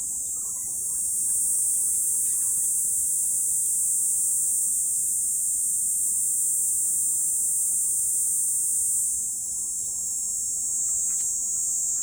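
Cicadas buzzing in a steady, high-pitched drone that swells about a second in and dips briefly near the end.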